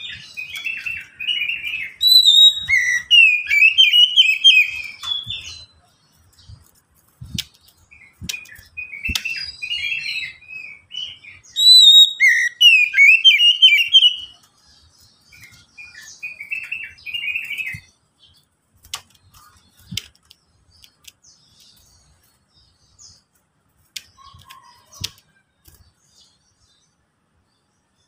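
Oriental magpie-robin singing loud, varied whistled phrases with rapid trills and chattering notes, in three bouts over the first two-thirds. It then goes mostly quiet, with a few faint notes and light clicks.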